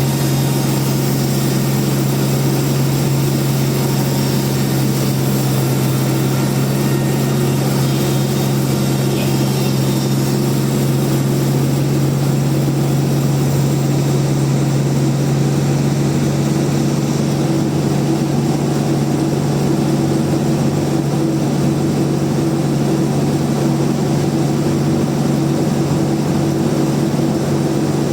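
Large band sawmill running with a steady, unchanging machine hum.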